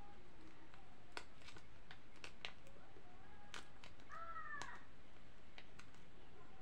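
Faint crinkles and sharp ticks from a small plastic sauce sachet being torn open and squeezed. About four seconds in comes one short, high, falling vocal sound.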